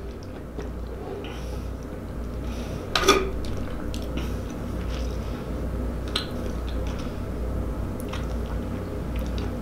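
Drinking through a straw from a paper fast-food cup: soft sipping and swallowing with small mouth clicks, one sharper click about three seconds in, over a steady low hum.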